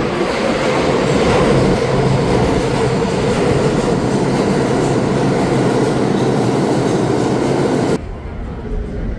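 Subway train running: a loud, steady rumbling noise that cuts off abruptly about eight seconds in, giving way to a quieter background.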